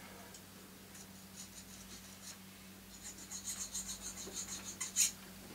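Needle file rasping on a small metal cross in short, light strokes, smoothing a freshly soldered joint. The strokes are faint at first, then come quickly at about five a second from about three seconds in, ending with one louder stroke.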